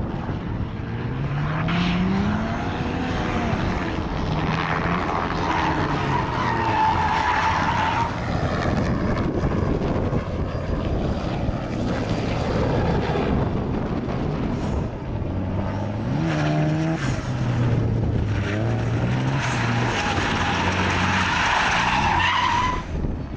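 Mazda RX-7's rotary engine revving up and down hard while its rear tyres squeal in two long spells as the car drifts, one in the first third and one near the end.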